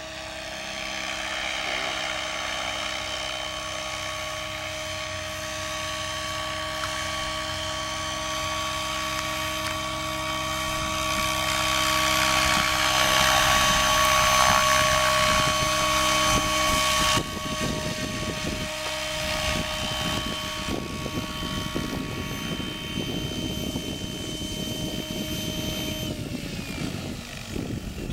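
Radio-controlled Protos Max V2 helicopter flying, a steady high whine from its motor and gears over the rush of the rotor blades, growing louder as it hovers in close. Near the end the whine falls in pitch as the rotor spools down after it sets down on the grass.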